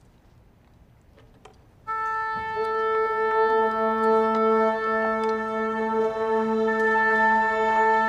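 A small orchestra of clarinets, oboe and strings comes in together about two seconds in, after a hush with a few faint clicks. They hold long, steady sustained notes, and more notes join a moment later.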